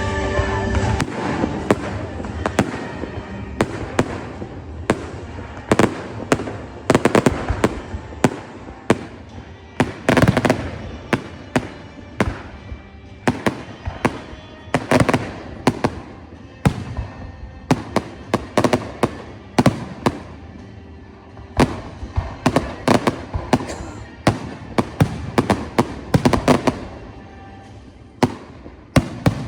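Fireworks display: a long run of sharp bangs and crackling bursts going off in irregular clusters, some shells much louder than others.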